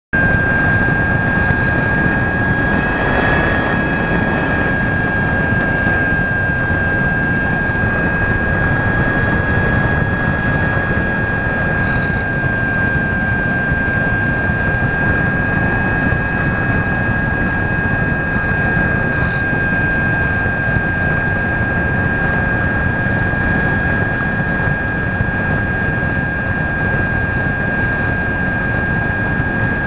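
Model aircraft's motor and propeller running at a steady high whine, heard from on board over heavy wind rush across the microphone.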